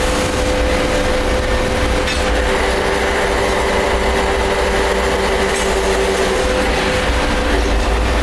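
Industrial machinery running steadily with a low rumble and a constant whine; a second, lower whine joins about two and a half seconds in and fades near the end.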